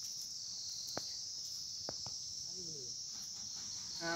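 Steady, high-pitched chorus of insects, with a few sharp clicks about one and two seconds in.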